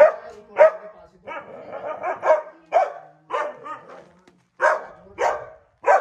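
A dog barking repeatedly: about ten sharp barks in an uneven series, with a short pause around four seconds in.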